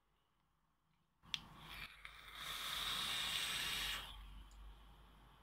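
Direct-lung hit on a rebuildable dripping atomiser (We Out Here Doe RDA on a Tuglyfe parallel box mod, a low build of around 0.13 ohm). A click about a second in, then a hiss of air drawn through the firing coil that builds for about three seconds and eases off.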